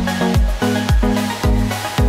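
Electronic dance music with a steady kick drum about twice a second under sustained bass and synth chords.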